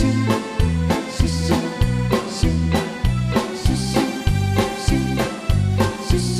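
Instrumental interlude of a pop song's backing track, with no singing: bass notes and drum hits on a steady beat, a little under two a second, under guitar and keyboard.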